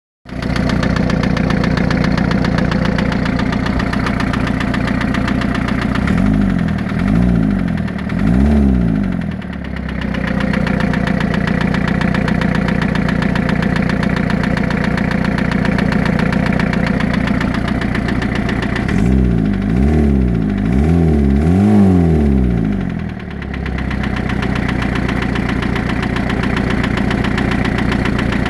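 3-litre engine idling with a knock, revved in short blips twice (a few quick rises and falls in pitch each time) before settling back to idle. The knock is still there after the bearing shells were changed, which the owner points to as the problem.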